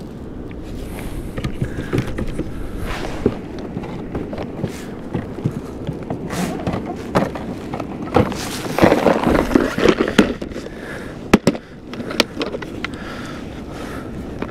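Steady rush of wind and water against a fishing kayak, with a run of sharp knocks and clicks of gear being handled on the boat, thickest from about eight seconds in.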